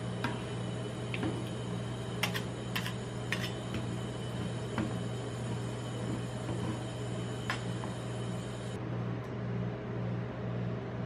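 Steady low hum of an ice-cream-roll machine's refrigerated steel pan running, with a few sharp clicks of a metal spatula tapping the pan, mostly two to three and a half seconds in and once more near the end.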